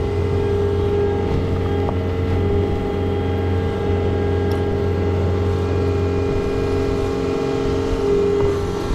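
Farm machine engine running steadily at a constant speed, with a steady higher-pitched hum over its low drone.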